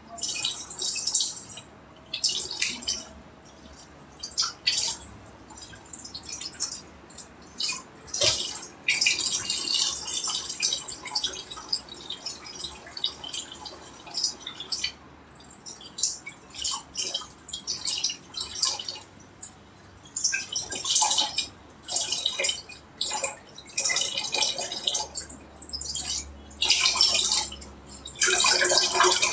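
Kitchen tap water running and splashing in the sink, on and off in irregular spurts, as hands rinse something in a bowl under it.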